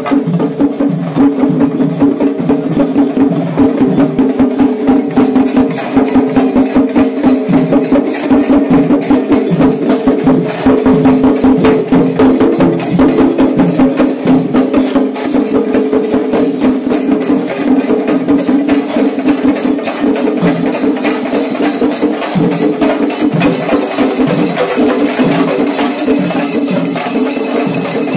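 Kerala temple percussion ensemble, chenda drums with cymbals, playing loudly and continuously in fast, dense strokes with a high metallic shimmer above.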